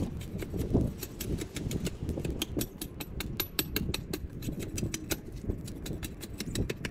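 A hand blade scraping bark off a thin wooden stick: a fast run of short scratchy ticks, busiest in the middle.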